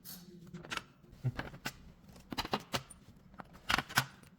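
Irregular small metallic clicks and knocks of a wrench and Allen key working the skateboard truck bolts and the front truck being taken off, with the loudest clatter near the end.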